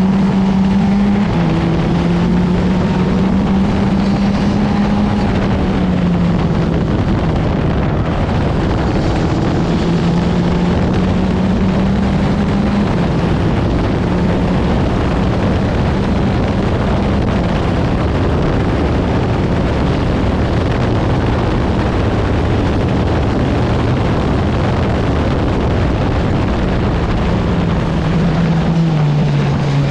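Open-wheel formula racing car's engine running hard at speed, heard on board. Its pitch steps down with upshifts about a second in and again around six seconds, climbs and then holds steady along a straight, and falls near the end as the car slows.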